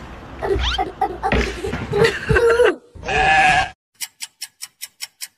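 Goat bleating: one drawn-out bleat about three seconds in. Mixed pitched calls come before it, and a quick run of sharp clicks, about seven a second, follows it.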